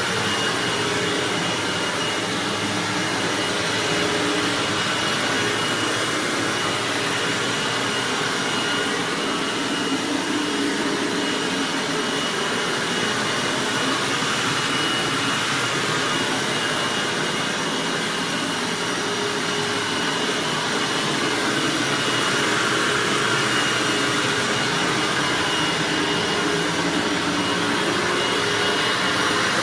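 Hoover WindTunnel bagged self-propelled upright vacuum running steadily while cleaning carpet, a constant rushing of air with a steady high whine.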